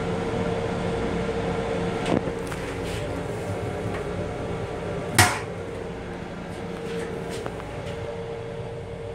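Hinged metal waste-bin flap in a railcar restroom: a lighter knock about two seconds in as it is pushed open, then a sharp bang about five seconds in as it swings shut. Under it runs the steady hum of the moving M7 electric railcar.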